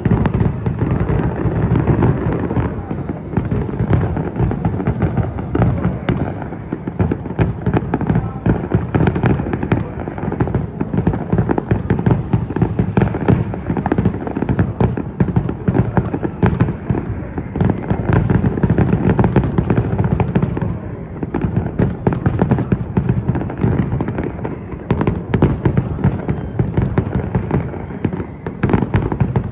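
Fireworks display going off without pause: dense, rapid bangs and crackling over a continuous low rumble.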